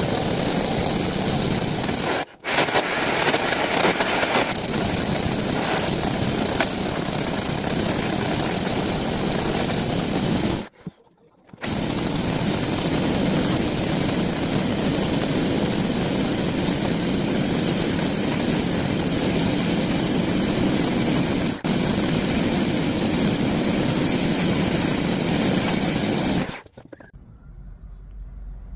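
Electric drill boring a hole through a wall, running steadily with a high motor whine. It stops briefly about two seconds in and again around eleven seconds, then stops near the end.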